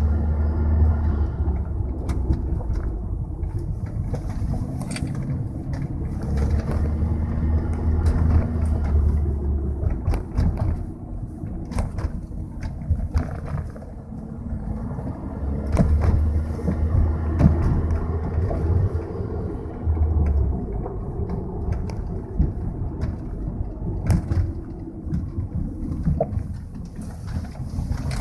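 A 2003 Volkswagen Jetta 1.8T being driven, its engine and road noise running throughout. A deep low drone swells and fades several times, and a few short sharp clicks or knocks are scattered through it.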